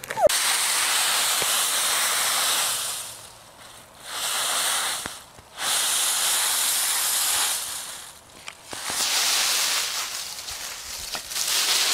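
Dry autumn leaves rustling and crackling as a small dog plunges through a leaf pile, in five surges of a second or two each with short pauses between.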